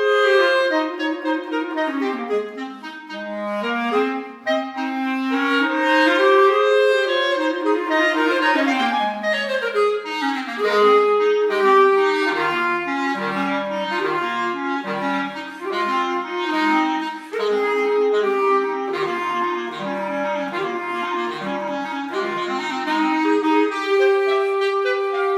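Clarinet duet: one clarinet plays a melody over a lower part moving in quick, even notes, with a run of rising notes about eight seconds in.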